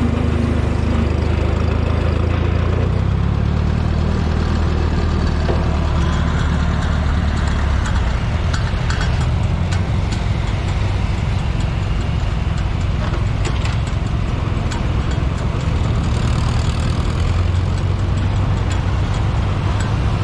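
Old farm tractor engines running steadily. First comes the close, even drone of the Minneapolis-Moline tractor carrying the camera as it drives along the road. From about eight seconds in, other vintage tractors, a John Deere and a Ford, are heard running as they pull in close by, and a heavy engine drone builds again near the end.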